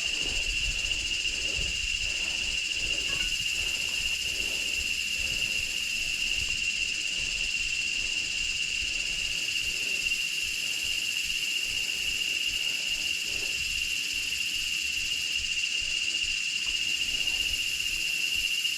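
Steady chorus of jungle insects, one shrill high note holding without a break, with a faint low rumble underneath.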